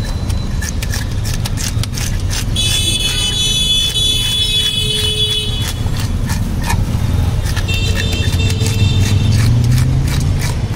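Repeated rasping scrapes of a nail-studded wooden scaling board stroked along a large catla's body, scales tearing off. Under it is a steady low traffic rumble, and a shrill horn-like tone sounds for a few seconds from about two and a half seconds in.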